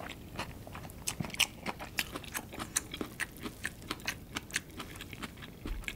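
A person chewing crunchy food close to the microphone: a quick, irregular run of sharp crunches and clicks.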